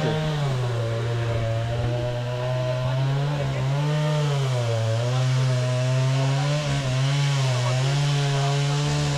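Chainsaw running as it cuts into a tree, the engine holding a steady pitch that sags briefly several times under load and picks back up.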